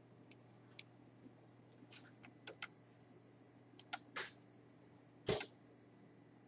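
A handful of faint, scattered clicks, some in quick pairs, over a low steady hum.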